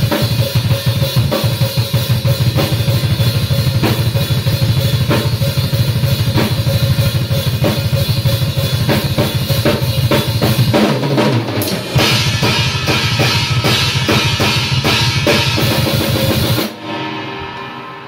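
Metal band playing loud: a drum kit with rapid kick drum, snare and cymbals under electric guitars and bass. The band stops abruptly about a second and a half before the end, leaving a fading ring.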